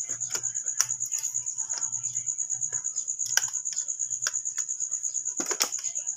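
Clear plastic bag crinkling and crackling as a toy car is worked out of it by hand, with a few sharper crackles. A steady, high-pitched, rapidly pulsing trill runs underneath.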